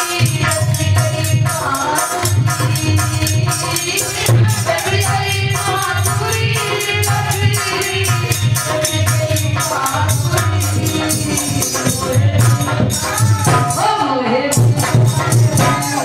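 Devotional bhajan music: a woman's singing voice over a steady drum beat and fast rattling percussion.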